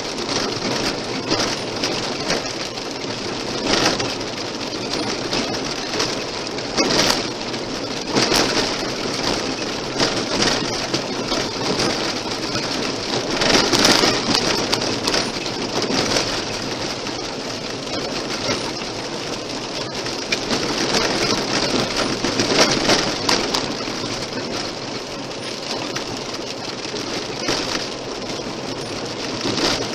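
Car tyres rolling over a loose gravel road: a steady crackling road noise with frequent sharp knocks of stones flicked against the car's underbody.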